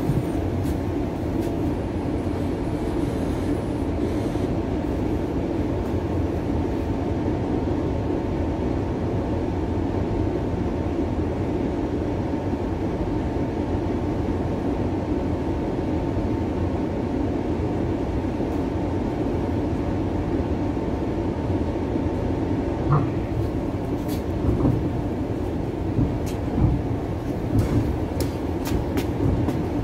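Inside a Bombardier Flexity Outlook streetcar riding along the track: a steady rumble with a steady hum above it. A few short sharp clicks come near the end.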